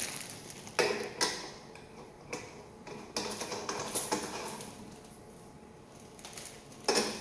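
Plastic air filter housings being handled and screwed onto a twin-piston air compressor pump head: a handful of light, separate clicks and knocks, with a louder one near the end.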